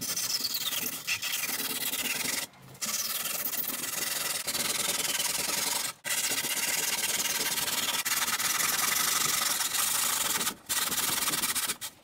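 A long hand blade cutting and scraping through cured polyurethane expanding foam on a surfboard, in long rasping strokes broken by short pauses about two and a half, six and ten and a half seconds in.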